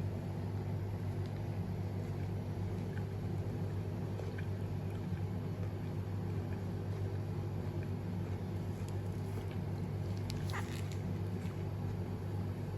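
Steady low mechanical hum with a constant pitch, with a few faint light ticks about ten seconds in.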